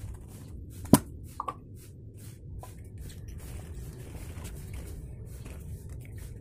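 Plastic containers handled over a glass bowl: scattered light clicks and taps, with one sharp tap about a second in and two softer ones just after, over a steady low hum.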